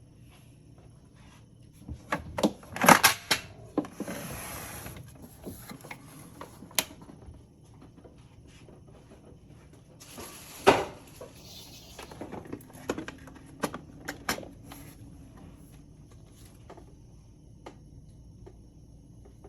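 Scattered knocks, clicks and clatter of household objects being handled and set down, with two brief hissing or rustling noises, about four seconds in and again around eleven seconds.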